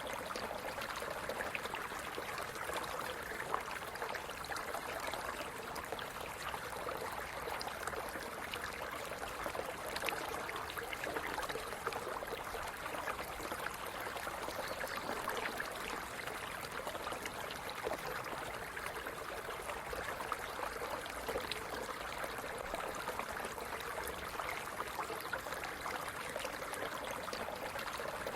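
Stream water running and splashing over rocks, a steady rush with many small splashes and gurgles.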